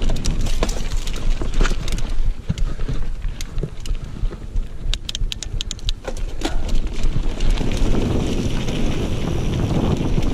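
Mountain bike descending dirt singletrack at speed: tyres rumbling over the trail and wind rushing on the microphone, with many sharp rattling clicks from the bike over rough ground, most tightly packed about five to six and a half seconds in. The wind rush grows steadier near the end.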